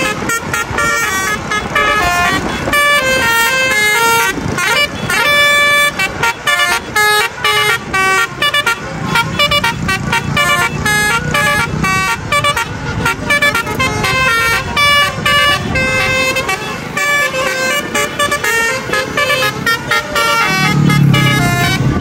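Bus basuri horns, multi-trumpet musical air horns, playing quick tunes of short stepped notes almost without a break, one melody running into the next.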